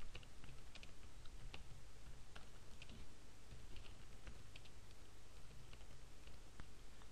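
Faint typing on a computer keyboard: a run of irregularly spaced keystroke clicks over a low steady hum.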